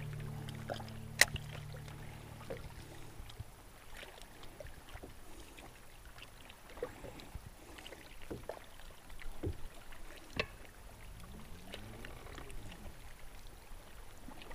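Small water slaps and lapping against a boat's hull, with scattered light clicks and knocks, one sharper click about a second in. A low steady hum fades out over the first three seconds.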